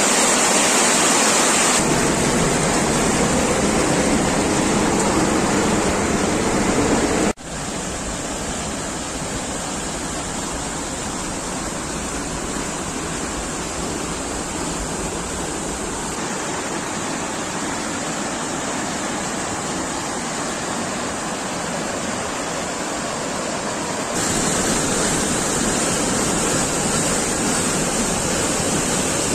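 Whitewater of a rocky mountain river rushing over boulders, a steady noise that drops out for an instant about seven seconds in, comes back a little quieter, and turns louder again near the end.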